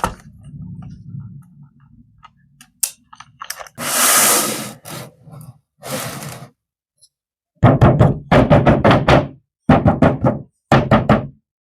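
A series of thuds and knocks, heavy and closely spaced in the second half, with a short burst of rustling noise about four seconds in.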